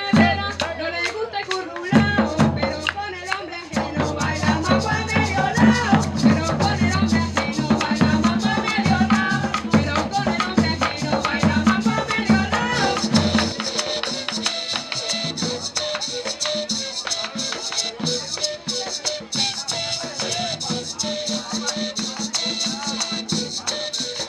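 Live traditional Colombian cumbia: singing over hand drums and a steady shaken rattle rhythm of maracas. About halfway through the deep drum drops out and higher held tones take over.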